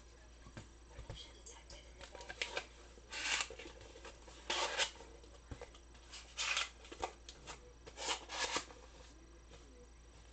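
Baseball trading cards being slid and flipped through by hand: a short rustle every second or two, with light ticks between.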